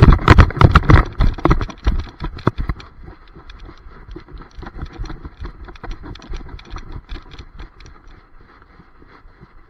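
A dog galloping across grass with a camera strapped to it: its paws hitting the ground and the camera mount jolting give rapid thuds. These are heavy for the first three seconds, then lighter and more scattered as the dog slows to a trot.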